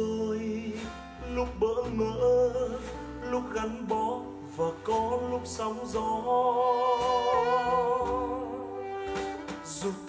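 Recorded Vietnamese ballad music playing, with a held melody line wavering in vibrato through the second half.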